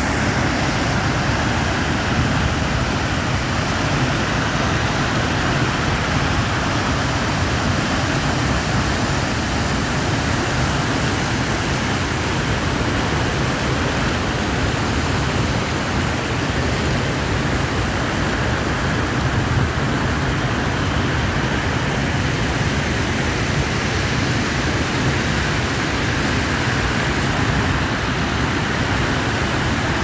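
Large waterfall and the churning floodwater below it rushing steadily: the river is in flood and rising fast.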